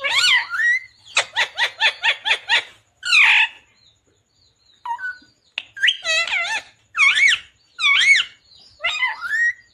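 Ringneck parrot (rose-ringed parakeet) calling loudly: a quick run of about eight short, even notes, then a series of separate wavering calls with short pauses between them.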